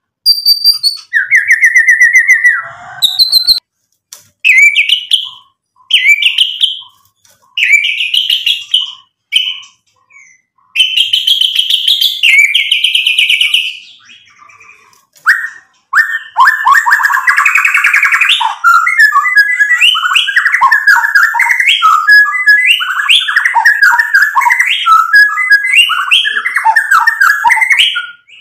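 White-rumped shama singing: separate loud whistled phrases, many of them rising, for the first half, then from about halfway a long, fast run of varied notes packed close together.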